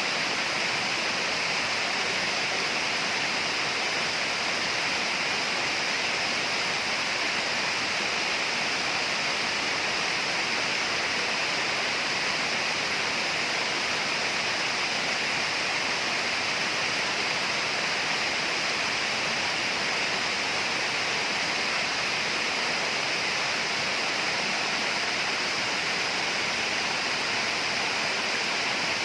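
Steady tropical rainforest ambience: an unbroken, even hiss of noise, strongest in the high range, with no single event standing out and no change throughout.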